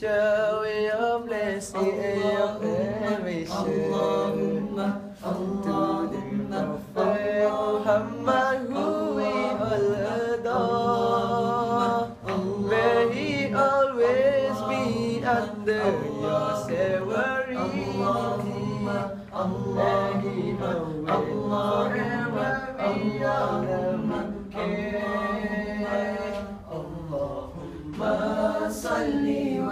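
Male a cappella vocal group singing a selawat, a devotional chant in praise of the Prophet, in close harmony, with a steady low vocal line held beneath the moving melody.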